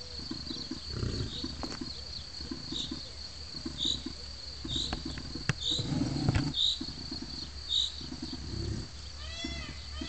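Bison giving low, rough, pulsing grunts in short bursts, repeated every second or so. A steady high insect whine and a bird's regular short chirps run underneath, with a quick series of chirps near the end.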